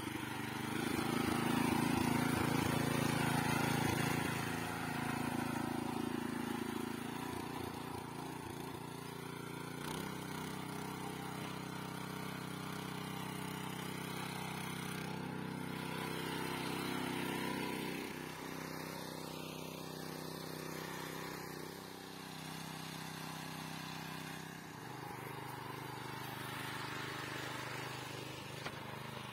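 Small petrol engine of a motor cultivator (garden tiller) running under load as its rotating tines dig into the soil. The engine note holds steady but shifts pitch a few times as the load changes.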